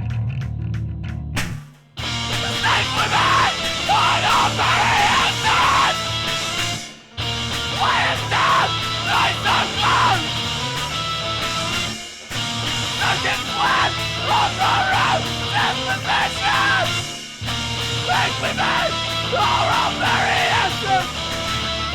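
Heavy punk-style rock band recording with screamed vocals over distorted guitars, bass and drums. It opens on a lone guitar line, the full band crashes in about two seconds in, and it cuts out for a split second a few times in a stop-start pattern.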